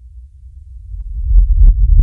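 Sound effect of a deep, low rumble swelling louder, with sharp crackles and pops breaking over it from about halfway through.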